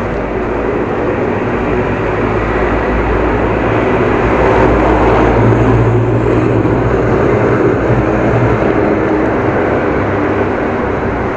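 Steady wind rush on the action camera's microphone and tyre rumble from a bicycle riding on an asphalt bike path, loud throughout; a low hum swells about halfway through and fades again.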